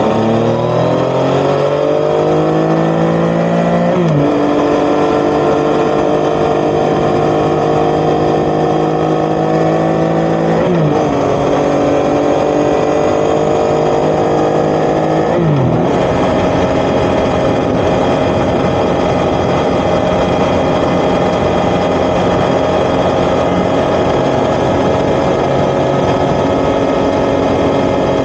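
Yamaha XSR900's crossplane inline-three engine through an Akrapovic titanium exhaust, accelerating hard for the first few seconds. It upshifts three times, at about 4, 11 and 15 seconds in, the pitch dropping at each shift. It then settles into a steady cruise with rising wind noise.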